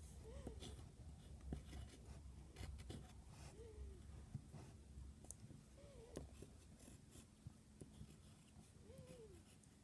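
Near silence: faint room tone with light rustling and small clicks, and a few faint short tones that rise and fall.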